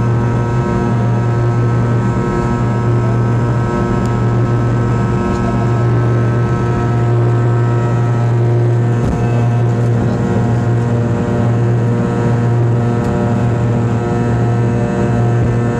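A Fokker 100's rear-mounted Rolls-Royce Tay turbofans at takeoff thrust, heard inside the cabin during the takeoff roll and liftoff. They make a loud, steady drone with a strong low hum and several held tones above it.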